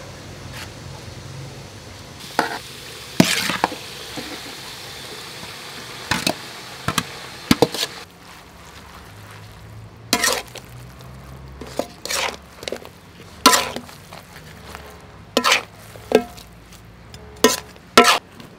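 Stir-frying tiger shrimp and glass noodles in a metal wok: a spatula scrapes and knocks against the pan about once a second. A steady sizzling hiss runs under the strokes through roughly the first half.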